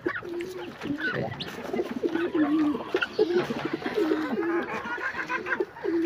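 Pigeons cooing over and over in short wavering calls, with brief higher bird chirps scattered between.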